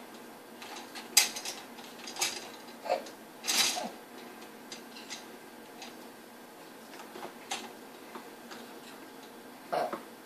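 Plastic baby rattle toy on a seat tray clicking and rattling in irregular bursts as a baby grabs and shakes it: a sharp clack about a second in, a longer rattle near four seconds, and another near the end.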